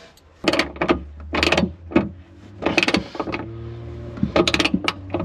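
Metal hardware clinking and scraping as a flat washer, lock washer and nut are fitted by hand onto a bow cleat's mounting bolt: a string of short, irregular clicks, over a steady low hum.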